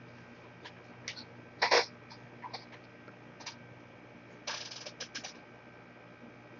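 Scattered light clicks and taps of small tools and parts being handled on a repair bench, with a louder click about a second and a half in and a quick cluster of several around the five-second mark, over a steady low electrical hum.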